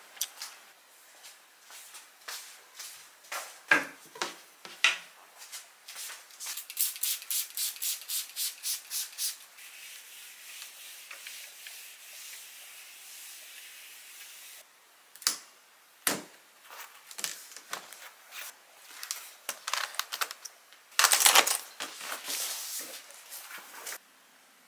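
Kitchen handling sounds: scattered clicks and knocks of utensils and dishes. A run of about a dozen quick scraping strokes comes a few seconds in, then a steady hiss that cuts off suddenly.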